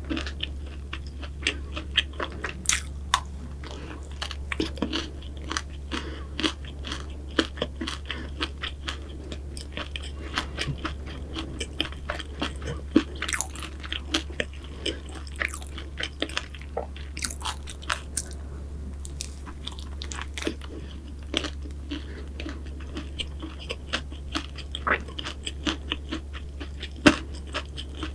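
Close-miked eating of flaky pastries: irregular crisp crunches and bites with soft chewing in between, over a steady low hum.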